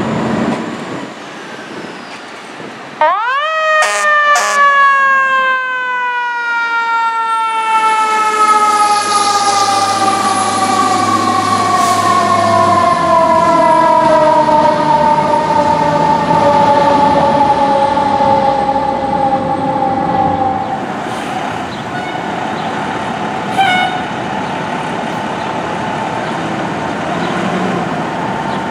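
Fire truck's mechanical siren winding up sharply about three seconds in, then coasting slowly down in pitch for some fifteen seconds over steady traffic and engine noise.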